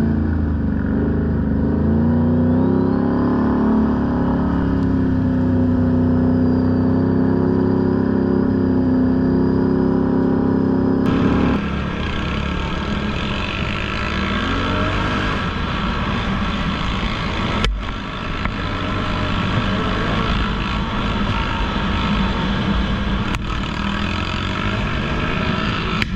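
ATV engine running under load on a trail, its pitch rising and falling with the throttle. About eleven seconds in the sound changes abruptly to a rougher, noisier engine sound with a few sharp knocks.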